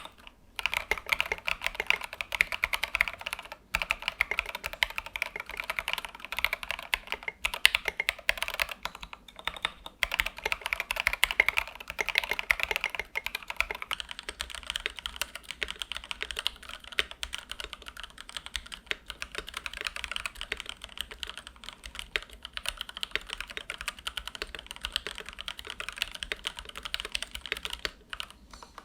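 Fast, continuous typing on a Press Play Orbiter67 65% mechanical keyboard built with stock Jwick Black switches and SA-profile keycaps: a clacky run of key strikes with a few brief pauses.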